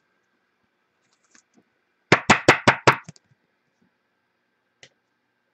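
A quick run of about six sharp knocks on a hard surface, all within about a second, starting about two seconds in, followed later by one faint tap.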